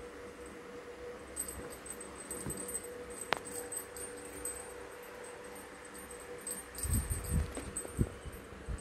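Small bell on a feather wand cat toy jingling on and off as a kitten bats at it, with a sharp click about three seconds in and a few soft thumps near the end.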